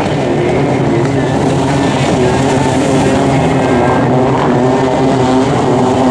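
Racing jet skis' engines running at high revs out on the water, a steady, slightly wavering drone.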